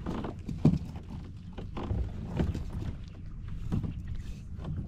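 Water sloshing and slapping against a kayak's hull, with irregular knocks and a low rumble of wind on the microphone. The sharpest knock comes under a second in.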